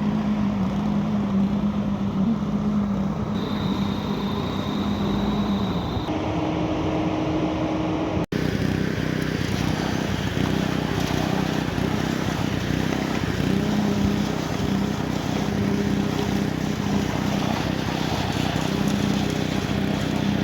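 Heavy diesel engine running steadily, with a humming tone that shifts in pitch about six seconds in. The sound cuts out for an instant about eight seconds in, then carries on.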